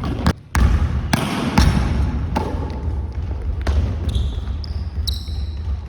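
A basketball bouncing on a gym floor in a series of irregular bounces during one-on-one play. About four seconds in, sneakers give several short, high-pitched squeaks on the floor.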